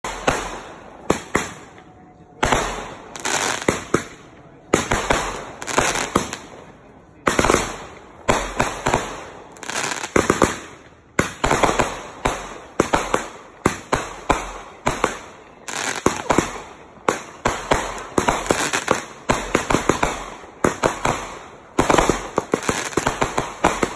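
Aerial fireworks bursting in quick volleys: sharp bangs one after another with crackling, broken every few seconds by short lulls.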